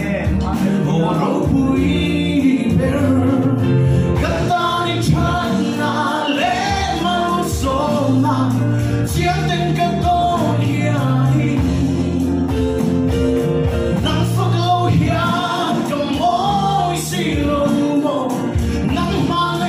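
A small live worship band playing a gospel song: men and women singing together into microphones, backed by keyboard, electric bass, acoustic guitar and an electronic drum kit.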